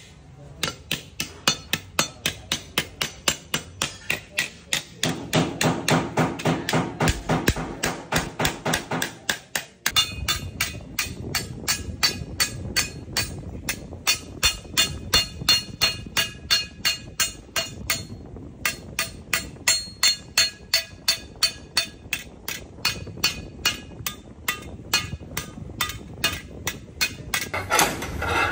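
Hammer beating sheet-metal car body panels in steady, rapid blows, about three a second, each with a short metallic ring: panel beating to straighten crash damage.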